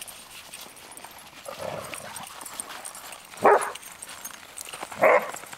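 Dogs barking during rough play, two loud single barks about a second and a half apart.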